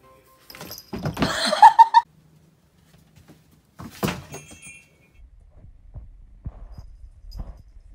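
A loud clatter of plastic containers knocked off a shelf, about a second long, starting about a second in. A single sharp thump follows about four seconds in.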